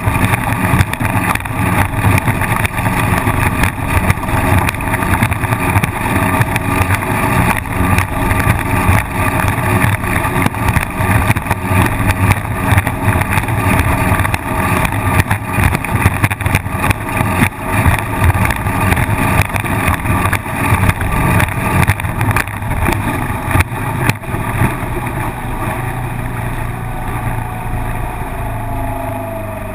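Small outboard motor on a Cocktail Class wooden racing hull running flat out, a steady loud drone, with the hull knocking and slapping over the chop. Near the end the motor eases off, its pitch sliding down and the sound getting quieter.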